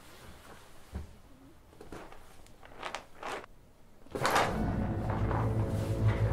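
Soft knocks and rustles of a box being handled on a counter, then about four seconds in a sudden swell gives way to a horror film score: a loud, steady low drone with sustained tones above it.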